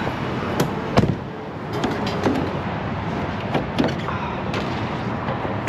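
Several sharp knocks and clicks as a Peterbilt semi truck's cab door and hood latches are handled, the loudest knock about a second in, over a steady low rumble.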